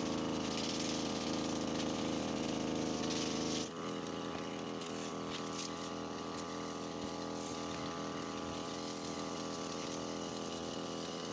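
Small petrol engine of a backpack power sprayer running steadily while it sprays pesticide from its nozzle. The engine note drops a little in level and changes about four seconds in, then holds steady.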